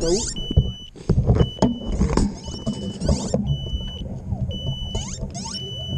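An FPV quadcopter's buzzer beeping a steady high tone about once a second, with quick high chirps between the beeps. Handling knocks and rustle from the drone being carried sit underneath.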